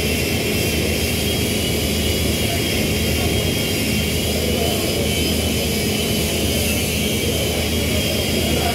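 Steady, loud machine roar with a low hum beneath it, carrying on unchanged after the welding arc goes out near the end.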